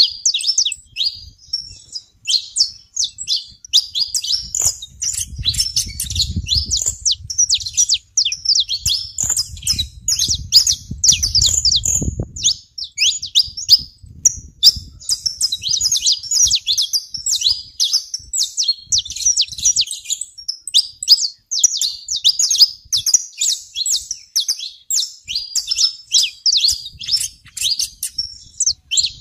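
A flock of saffron finches chirping continuously, a dense run of quick high notes with hardly a break. A low rumble sits under the chirps from about four to twelve seconds in.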